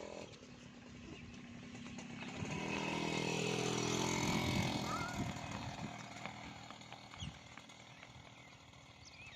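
Motorcycle engine passing by: it grows louder over a couple of seconds, runs at its loudest for a few seconds, then fades away.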